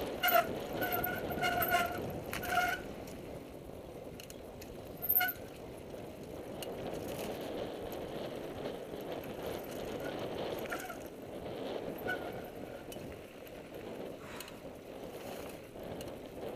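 Mountain bike rolling along a dirt singletrack: a steady rumble of tyres on dirt with frame and chain rattle. Several short high-pitched squeals, typical of disc brakes being applied, come in the first three seconds and again about five seconds in.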